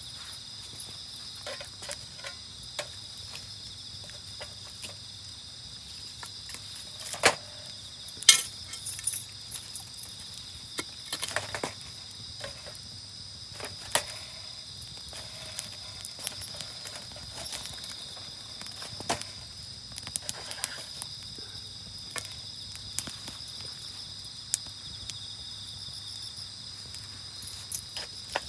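Steady high-pitched chorus of night insects such as crickets, with a wood campfire crackling: sharp pops scattered throughout, the loudest about seven and eight seconds in.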